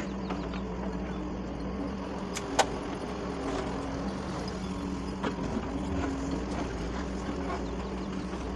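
Doosan DX140 excavator's diesel engine running steadily while digging and loading soil, with a few sharp knocks; the loudest comes about two and a half seconds in.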